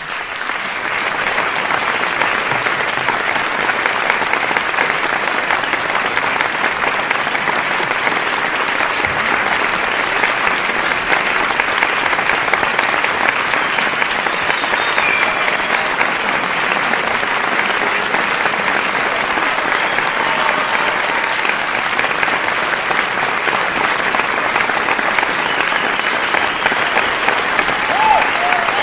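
Large crowd applauding: dense, steady clapping that swells up over the first second or so and then holds at an even level.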